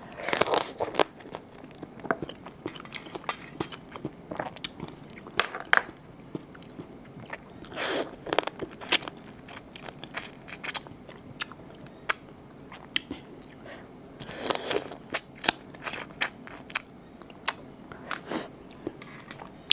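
Close-miked biting and crunching through raw blue swimmer crab shell, with irregular sharp cracks throughout and a few longer, louder stretches about 8 and 15 seconds in.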